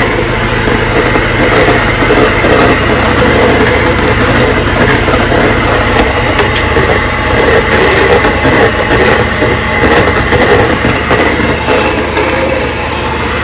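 Electric hand mixer running steadily, its beaters whisking a mixture in a stainless steel bowl; a little quieter near the end.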